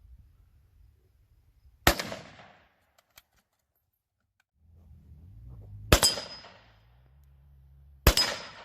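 Three rifle shots, the first two about four seconds apart and the third two seconds later, each trailing off in a short echo.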